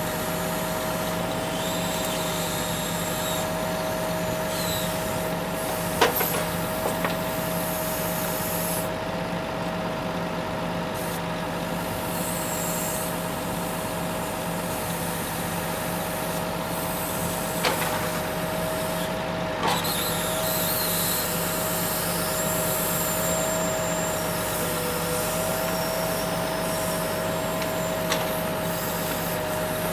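Timber lorry's diesel engine running steadily to drive its loader crane's hydraulics, with a constant high whine throughout. A few sharp knocks from the crane and grab break in, one about six seconds in and others near twenty seconds and near the end.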